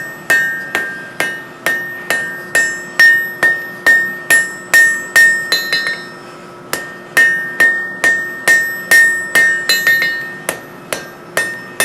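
Light hammer blows on the anvil tacking a hot, fluxed Damascus billet of layered steel and nickel together, the first stage of forge welding. The strikes come about two a second with a brief pause about six seconds in, and each leaves the anvil ringing.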